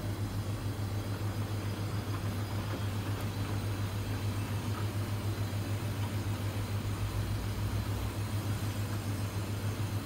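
A steady low machine hum that holds constant throughout.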